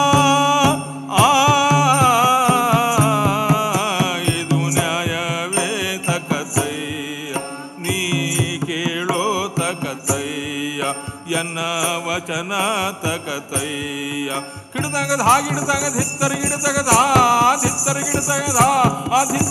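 Traditional accompaniment music for a Karnataka leather shadow-puppet play: a voice sings an ornamented, wavering melody over a steady drone, with frequent drum strokes and jingling percussion.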